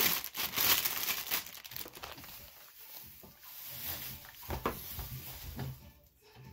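Clear plastic bag of shredded Easter grass crinkling as it is handled and opened, with the grass rustling as handfuls are pulled out; loudest in the first two seconds, then quieter rustling and a few soft knocks.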